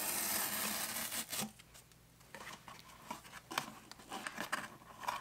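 Cardboard tear strip being ripped along the edge of a shipping box, one continuous tear that ends about a second and a half in with a sharp snap. Then quiet rustles and light knocks of the cardboard lid being lifted open.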